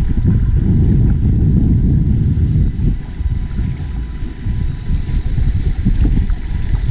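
Wind buffeting the microphone in a low, uneven rumble, with faint steady high-pitched tones running under it.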